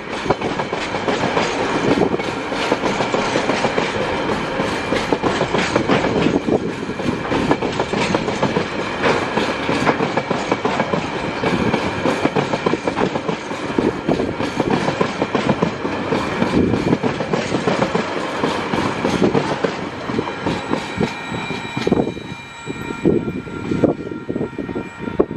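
Container-laden flat wagons of a TasRail freight train rolling past, their wheels clicking over the rail joints in a rapid clickety-clack under a thin, high, steady ringing. The sound drops away about 22 seconds in as the last wagons go by.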